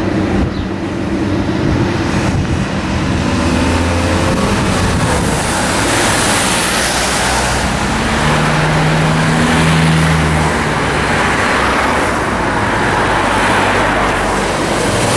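Road traffic passing close by: car engines running and tyre noise, with cars going past louder about six seconds in and again near the end.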